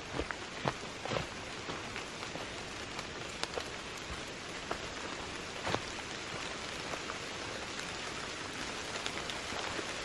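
Steady rain falling through trees, with scattered sharp taps of single drops, the loudest in the first few seconds.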